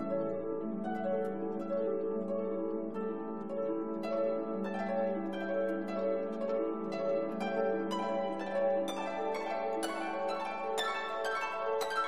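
Gentle instrumental background music: plucked-string notes, harp-like, over held chords, the notes coming faster in the second half.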